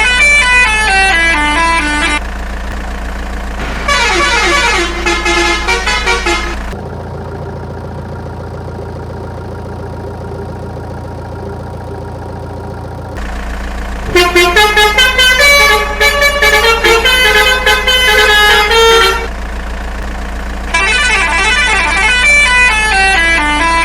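Electronic tune of quick descending note runs, repeated several times over a steady low drone, with a stretch of about six seconds in the middle where only the drone plays.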